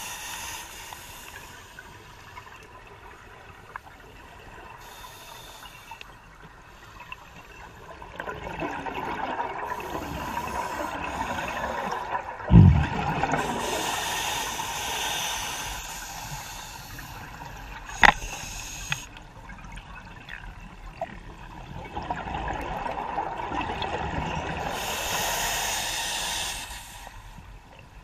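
Scuba diver's regulator breathing underwater: hissing inhalations and gurgling rushes of exhaled bubbles, coming and going in slow breaths. A single low thump about halfway through and a sharp click a few seconds later.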